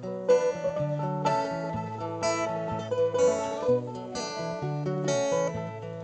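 Instrumental intro of a folk song: acoustic guitar strummed in steady chords, with a second plucked string instrument picking a melody over it.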